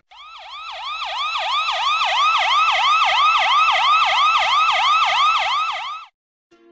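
Police car siren on a fast yelp, sweeping rapidly up and down about three to four times a second. It swells over the first second or two and cuts off suddenly about six seconds in.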